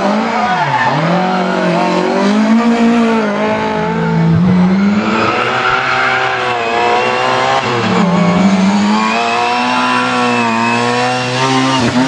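Lada rally car's four-cylinder engine at high revs, its pitch falling on lift-offs and gear changes three times and climbing again as it accelerates out of the bends. Tyres squeal briefly about halfway through.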